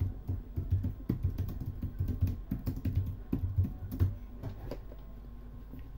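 Typing on a computer keyboard: quick, irregular key clicks that stop about four and a half seconds in.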